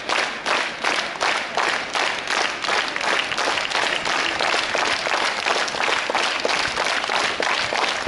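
Audience clapping along in a steady rhythm, about three claps a second.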